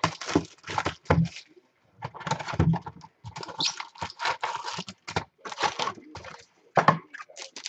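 A cardboard box of trading cards being handled and opened by hand, and its foil packs set out on a wooden desk: irregular rustling, tearing and light knocks.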